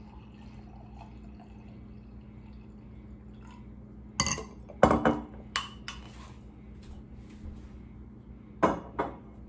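White wine poured from a bottle into a stemless glass, a faint trickle, then several sharp knocks and clinks of glass being set down and handled on a stone countertop, about four to five seconds in and again near the end, over a steady low hum.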